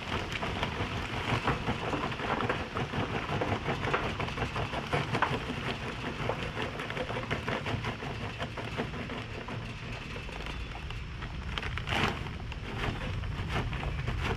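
Charcoal being poured from a bag into a metal grill: a steady dense clatter of many small pieces landing, with a louder rush of them about twelve seconds in.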